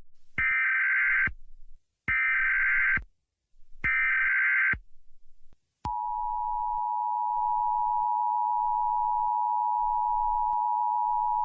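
Emergency Alert System alert tones: three short bursts of the digital SAME header data tones, about a second each and evenly spaced. About six seconds in, the steady two-tone EAS attention signal begins and holds.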